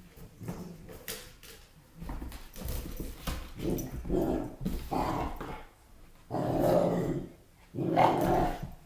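Weimaraner x German shorthaired pointer puppy growling and barking in playful bursts, getting louder through the second half, with two long growl-barks near the end.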